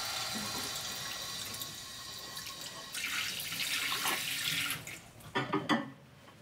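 Kitchen tap running into a sink during washing-up. The flow gets louder about three seconds in, and a few short clatters of dishes come near the end before the sound drops away.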